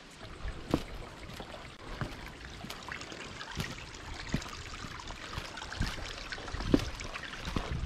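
Shallow creek water trickling over stones, with irregular footsteps on the rocks. The loudest step is a thump near the end.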